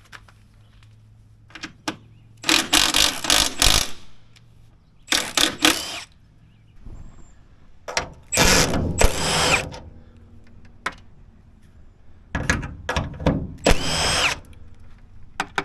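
Cordless power drill/driver running in about five short bursts, backing out the bolts that hold the old hood latch bracket on.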